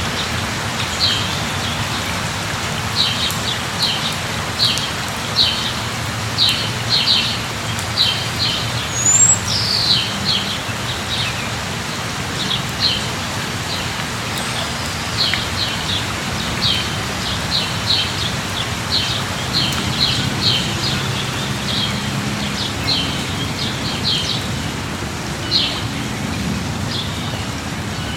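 Steady rain falling, with a bird calling over it in many short chirps, one or two a second, through most of the stretch.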